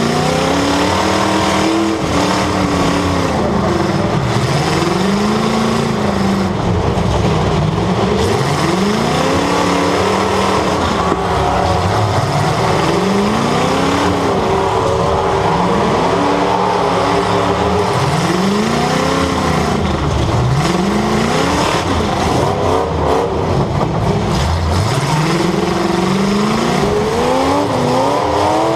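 Demolition derby car's engine, heard from on board, revving up and dropping back over and over, about every two to three seconds, over a steady noisy background.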